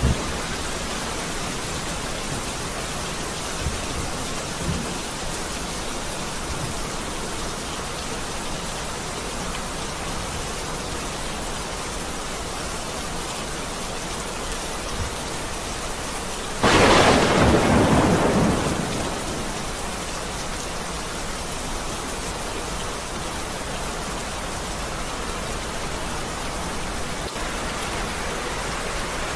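Steady rain falling, with a sudden loud clap of thunder a little past halfway that fades over about two seconds.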